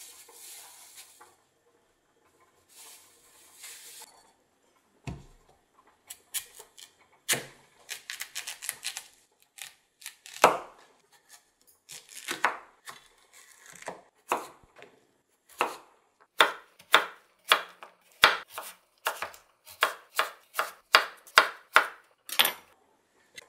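Chef's knife chopping through a Korean radish on a wooden cutting board. The cuts come singly and unevenly at first, then settle into a steady run of about two chops a second over the last eight seconds.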